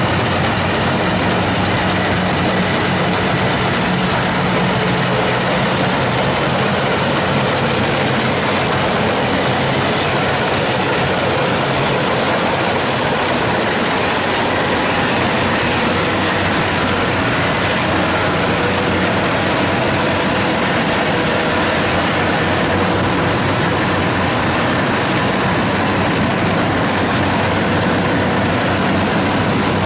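Rice combine harvester running steadily, a loud, even machine noise with a low engine hum underneath.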